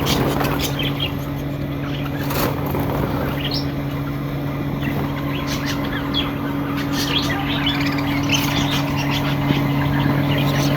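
A pair of lovebirds chirping: short high chirps scattered throughout, over a steady low hum, with a brief knock near the start and another about two seconds in.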